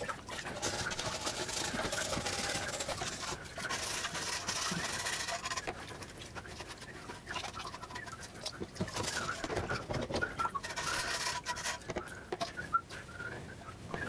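Water splashing and sloshing in a plastic washing-up bowl as rubber-gloved hands scrub the plastic parts of a bird feeder. Bursts of scrubbing noise come and go, with short high squeaks here and there.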